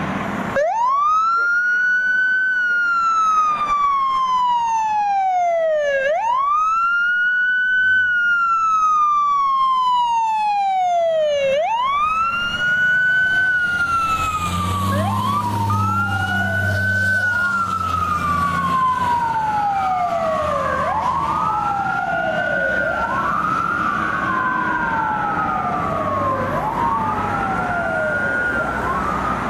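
Fire engine and rescue ambulance sirens wailing. One siren sweeps up quickly and slides slowly down, about once every five or six seconds. From about twelve seconds in, a second siren joins, wailing out of step with the first, and a heavy truck engine rumbles under them for a few seconds midway.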